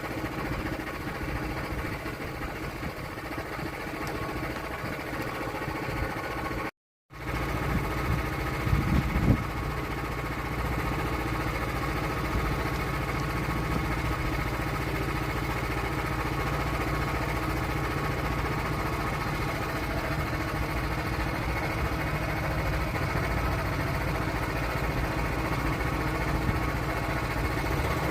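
Portable sawmill engine running steadily, with a complete drop-out of about half a second roughly seven seconds in and a brief louder patch just after.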